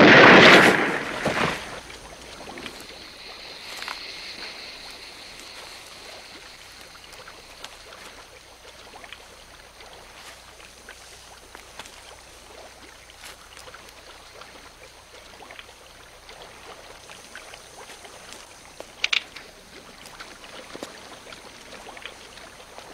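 A single loud gunshot at the start, its blast dying away over about a second and a half, then a faint steady hiss with scattered small crackles and one short sharp crack near the end.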